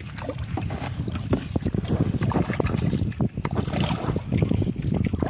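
Rapid, irregular knocking and rustling from a hooked tilapia being landed, over wind buffeting the microphone.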